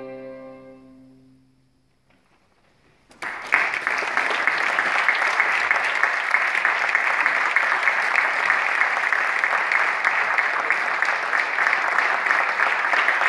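A string quartet's final sustained chord fading away, a moment of silence, then audience applause breaking out about three seconds in and continuing steadily.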